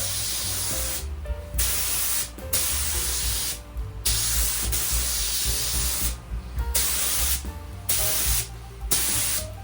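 Paint spraying in a series of hissing passes, each a second or two long with short breaks between, as a heavy final coat goes onto the metal sign base.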